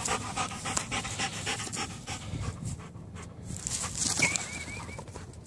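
A dog panting fast close by, the breaths fading after about two seconds. Around four seconds in there is a short, high, wavering whine.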